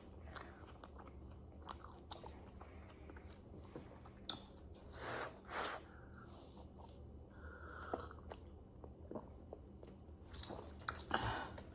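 Mouth sounds of people eating: soft, faint chewing and biting with small wet clicks, and two louder noisy bites or slurps about five seconds in.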